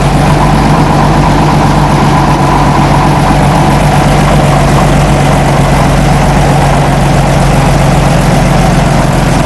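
Heavy vehicle engine running steadily at a constant speed, a loud, even hum with no revving.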